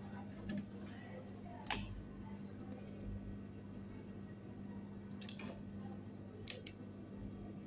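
Faint steady low electrical hum, with a few soft clicks: one about two seconds in and two more between five and seven seconds in.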